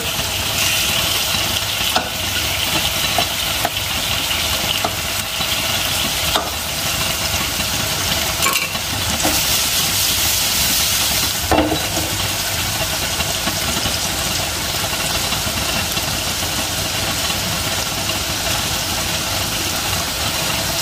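Pieces of climbing perch sizzling steadily in hot oil in a wok, being fried firm, with a spatula scraping and clicking against the pan a few times as the fish are turned.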